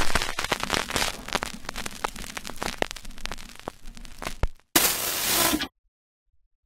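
Old-film crackle sound effect: dense crackling full of sharp clicks and pops, then about a second of TV static hiss that stops abruptly near the end.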